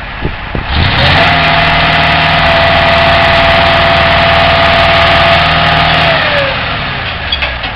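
Vehicle engine revved up about a second in and held at a steady high pitch for about five seconds, then eased off near the end.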